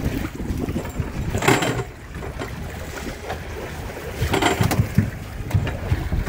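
Wind buffeting the microphone on a small boat at sea, a low rumble with scattered knocks and two short hissing bursts about one and a half and four and a half seconds in.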